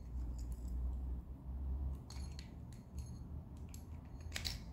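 Small clicks and taps of a spinning fishing reel being handled as its parts are fitted back together, over a low rumble of hands on the reel; the sharpest clicks come near the end.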